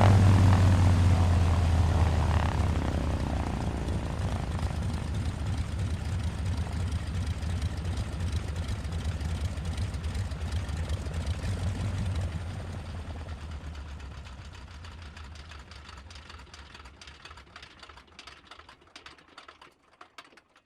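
Helicopter shutting down: the engine winds down and the rotor slows, its blade beats growing slower and fainter until they die away.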